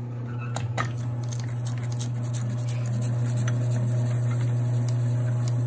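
Power inking rollers of an early-1940s Vandercook cylinder press running, spreading fresh ink with a steady motor hum as they oscillate. Scattered light clicks come through, most of them in the first couple of seconds.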